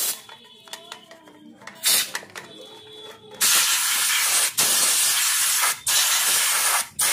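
Compressed-air siphon spray gun blasting cleaning solvent onto a motorcycle's greasy front sprocket and chain: a short hiss about two seconds in, then long loud hissing blasts from about three and a half seconds on, each broken by a brief stop.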